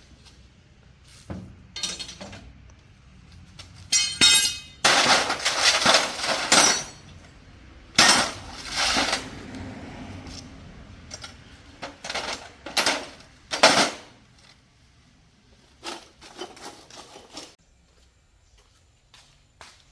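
Metal tools and parts clinking and clattering, a run of knocks and scrapes, some ringing, that thins out to a few light ticks near the end.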